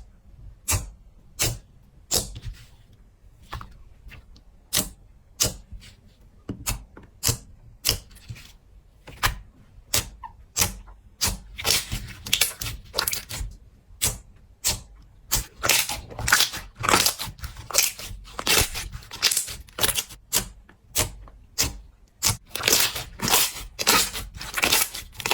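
Slime being pressed and worked by hand, giving sharp crackling pops and clicks, at first about one or two a second and coming in quicker clusters from about halfway through.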